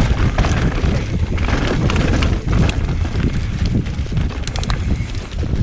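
Mountain bike rolling down a loose, dry dirt trail: wind buffeting the microphone over the rumble of tyres on the dirt, with scattered rattling clicks.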